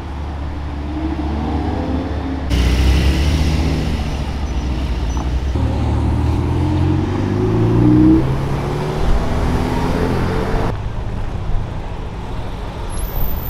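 Sports car engines revving and accelerating, the engine note climbing to a peak about eight seconds in and then dropping away. The sound changes abruptly twice, as the recording cuts from one car to another.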